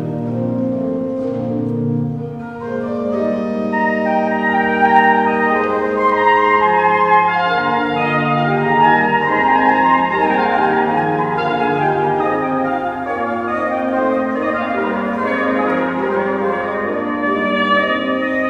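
Cornettino playing a Baroque melodic line over organ continuo, the low bass notes sustained underneath.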